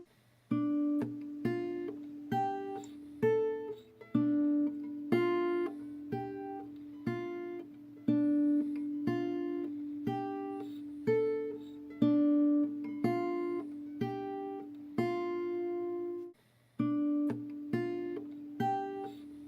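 Background music: acoustic guitar picking single notes, about two a second, with a brief pause near the end.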